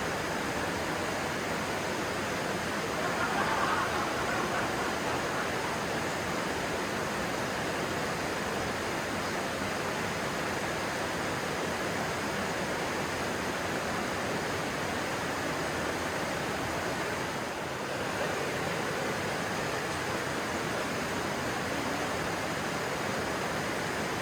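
Flowing stream: water rushing steadily, with a slight swell a few seconds in.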